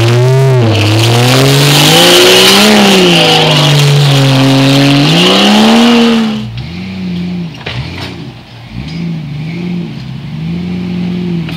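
Jeep Cherokee's engine revving up and down hard under load as it crawls over a rock ledge. About six seconds in, the sound cuts to a second off-road vehicle's engine, quieter and revving unevenly, with a couple of sharp knocks.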